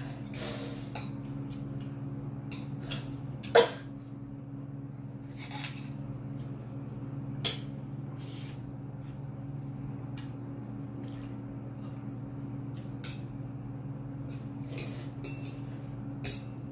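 Metal fork clinking and scraping against a plate while noodles are twirled and lifted: scattered light clicks, with two sharper clinks about three and a half and seven and a half seconds in, over a steady low hum.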